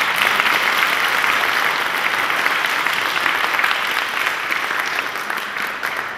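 Audience applauding: dense, steady clapping that begins to die down near the end.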